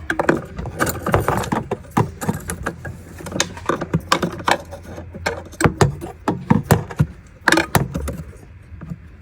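Irregular metallic clicks, taps and rattles of hand work in a car's engine bay: tools, clamps and parts being handled while a valve is swapped.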